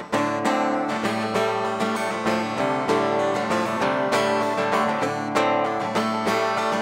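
Instrumental music led by a plucked string instrument picking quick runs of notes.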